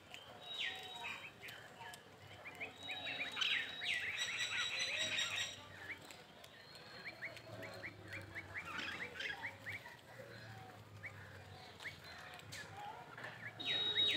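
Birds chirping: many short, quick chirps throughout, with a louder drawn-out call about four seconds in and another near the end.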